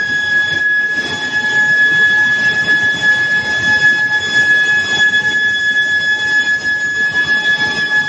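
Medium-frequency billet induction heating coils in operation, giving a steady high-pitched whine with fainter overtones over a constant rumbling hiss of plant machinery.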